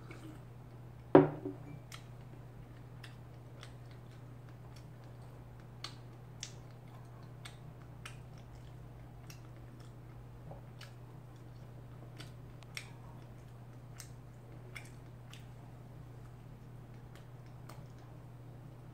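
A ceramic mug set down on a wooden table with one sharp knock about a second in. It is followed by faint, regular ticks over a steady low hum.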